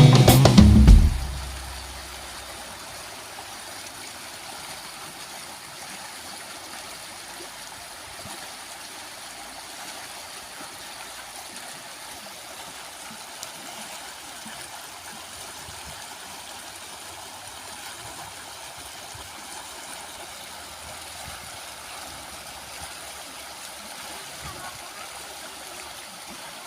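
Background music cutting off about a second in, then the steady rush of flowing river water.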